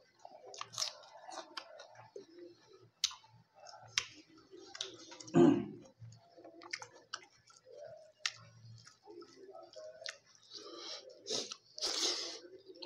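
Close-miked eating sounds of a person chewing a hand-fed mouthful of rice and fish: wet chewing, lip smacks and small clicks, irregular throughout, with one louder low mouth sound about five seconds in.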